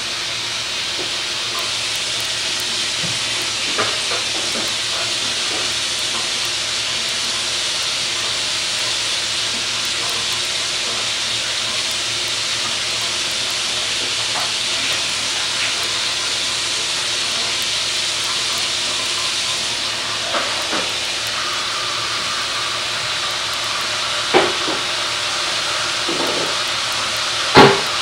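A steady, fairly loud hiss throughout, with a few brief faint knocks and one louder short sound near the end.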